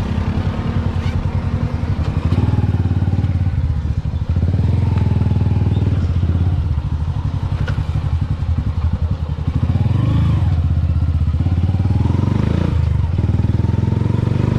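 Motorcycle engine of a sidecar tricycle running under way as it is ridden. The engine eases off briefly about four seconds in and again about nine seconds in, then pulls on steadily.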